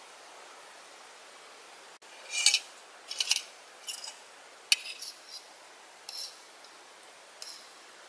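Wood fire burning in a Bushbox XL stainless steel folding stove, with about ten sharp crackles and pops scattered from about two seconds in, thinning out near the end.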